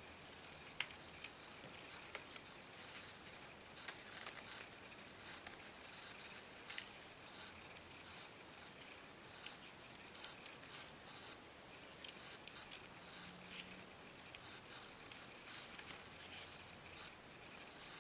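Scissors snipping through paper in a run of short, irregular cuts, faint.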